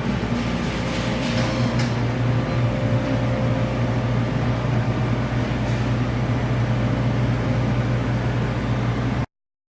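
Amada Aries 245 turret punch press running without punching: a steady low mechanical hum, with no stroke-by-stroke hits. It cuts off abruptly near the end.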